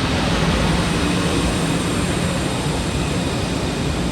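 LIRR M3 electric multiple-unit train rolling past close by: a steady rush of wheel and motor noise with a low hum underneath.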